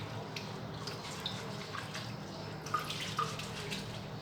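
Rice being rinsed by hand in a pot of water: small splashes and drips, with a steady low hum underneath.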